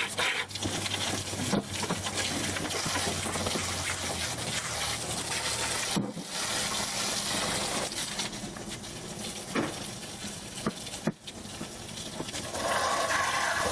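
A steady rush of running or spraying water, broken by a few sharp clicks.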